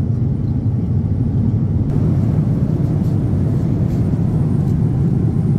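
Steady low rumble of a Boeing 787-10's passenger cabin in flight: engine and airflow noise heard from a seat.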